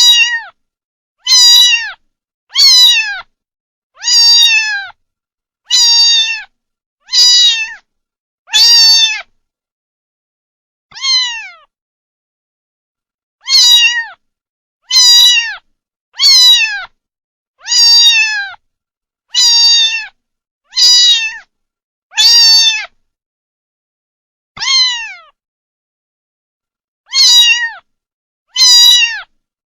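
Kitten meowing repeatedly: a long series of high meows, each falling in pitch at its end, roughly one every one and a half seconds. There are two short pauses, and dead silence between calls.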